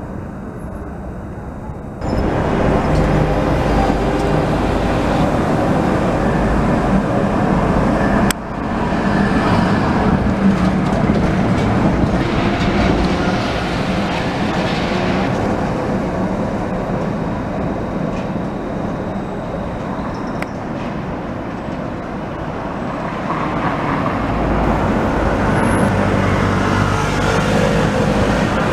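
Translohr rubber-tyred tram running past amid road traffic: a steady vehicle noise that changes abruptly about two seconds and about eight seconds in.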